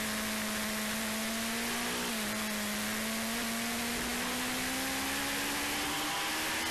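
Motorcycle engine running at a fairly steady pitch, slowly rising with a brief dip about two seconds in, over a steady hiss.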